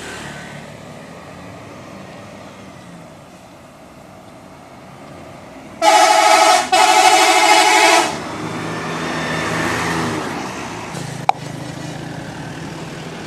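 A Shantika bus's telolet horn, the multi-tone musical horn of Indonesian buses, blares twice in quick succession about six seconds in, a short blast and then a longer one. Engine and traffic noise runs before and after it.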